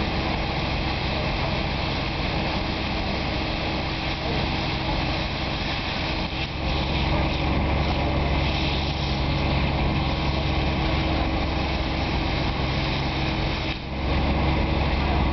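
Dynajet 350 trailer-mounted pressure washer running steadily, its motor humming under the hiss of the high-pressure jet on the paving stones. The low hum grows louder about six seconds in, and again after a brief dip near the end.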